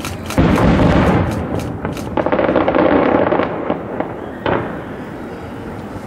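Fireworks display: rapid crackling, then a heavy boom about half a second in that rolls on as a long rumble, a second loud swell of bursts about two seconds in, and one sharp bang about four and a half seconds in before the noise dies away.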